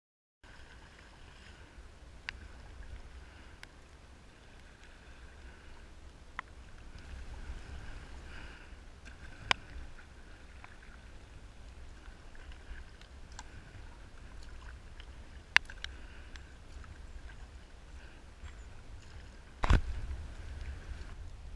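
Sea kayak being paddled: water noise from the paddle strokes over a low wind rumble on the camera microphone, with a few sharp clicks and one heavier knock near the end.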